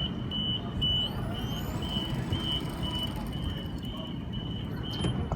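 Door-closing warning beeps of a Sydney Trains M-set (Millennium train): one high beep repeating two to three times a second, over the train's low rumble. About a second in, a faint high whine starts rising in pitch as the train begins to pull away.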